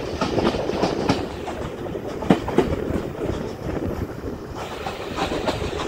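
A heritage railway carriage's wheels rolling along the track, a steady rumble with an irregular clickety-clack over the rail joints and two sharper knocks about two seconds in.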